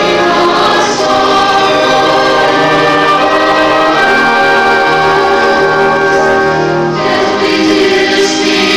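Large mixed church choir singing long held chords, the harmony changing every few seconds, accompanied by a small string orchestra.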